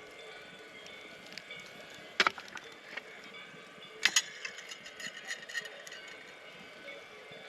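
Two sharp clinks about two seconds apart, each with a short ring, the second followed by a quick run of lighter clicks, over a steady background with faint ringing tones.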